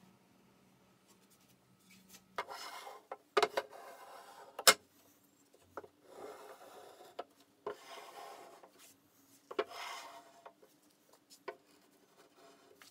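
Hand edge tools shaving solid birch, a block plane and a chisel: several scraping strokes of about a second each, starting a couple of seconds in, with one sharp tap between the early strokes.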